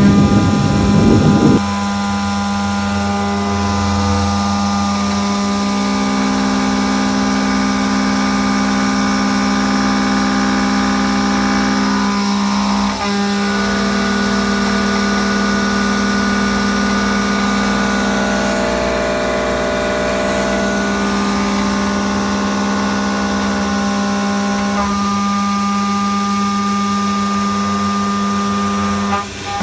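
Techno HDS CNC router spindle milling an aluminum plate: a steady machining whine made of several held tones. It opens with a loud rumble that stops suddenly about a second and a half in, and the tones shift slightly at two brief breaks.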